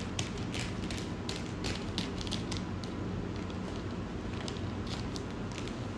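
Scissors snipping through a plastic courier mailer bag: a quick, irregular series of sharp snips and crackles of the plastic, over a steady low hum.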